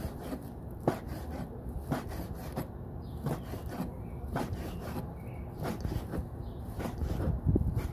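Cleaver chopping goat skin on a plastic cutting board: irregular sharp knocks of the blade striking the board, about one or two a second, with the rasp of the blade cutting through the skin.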